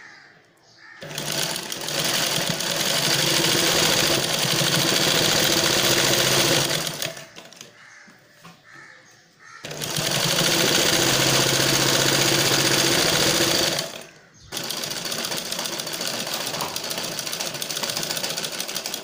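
Domestic sewing machine running as it stitches a seam through blouse fabric. It runs for about six seconds, stops for about two and a half seconds, runs again for about four seconds, then after a brief break runs a little more quietly.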